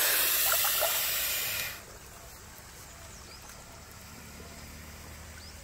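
Rock python hissing, a long, sustained hiss from an irritated snake tangled in a fishing net, which stops abruptly about two seconds in; after that only a faint, steady background remains.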